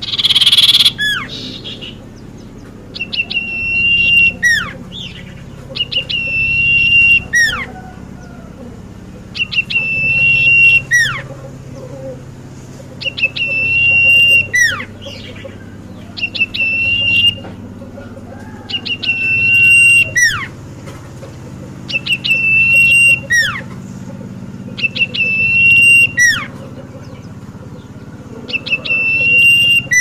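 Caged common iora (cipoh) singing the same phrase over and over, about every three seconds. Each phrase is a quick run of clicky notes, a held clear whistle, then a fast falling note.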